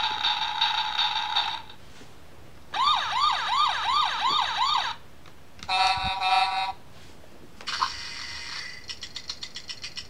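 Electronic sound effects from a Tonka sound-button book's small speaker, played one after another. A steady tone ends about two seconds in, then a siren rises over and over about three times a second. A short steady tone follows, and then a quick run of clicks, several a second.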